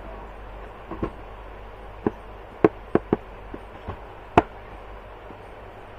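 About six sharp clicks and knocks at irregular intervals, the loudest a little past the middle, over a low steady background hum.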